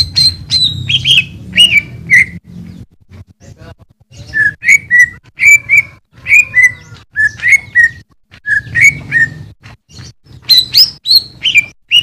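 Greater green leafbird (cucak ijo) singing loud, clear whistled notes. A first phrase of notes sweeps down in pitch, then after a short pause a long run of repeated notes rises and falls, and a burst of higher notes comes near the end.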